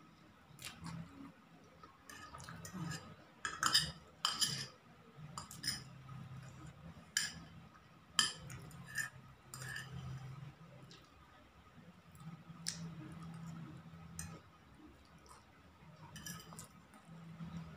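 A metal spoon clinking and scraping on a plate as fried instant noodles are scooped up, with several sharp clinks, the loudest about four seconds in, and soft eating and slurping sounds between them.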